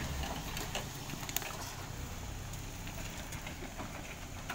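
Nissan Terrano 4x4's engine running steadily at low revs as it crawls up a muddy, rutted trail, with a few sharp cracks about a second in.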